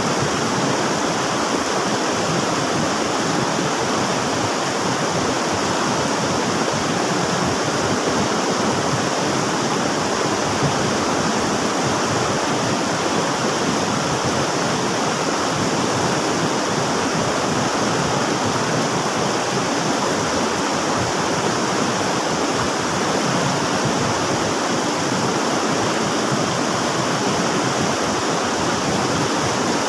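River water flowing, a steady, unbroken noise.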